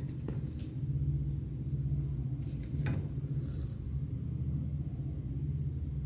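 Hand cross-stitching on cloth stretched in a scroll frame: the needle pokes through the cloth with two sharp clicks, one just after the start and one about three seconds in, and the thread hisses faintly as it is drawn through. A steady low rumble runs under it all and is the loudest sound.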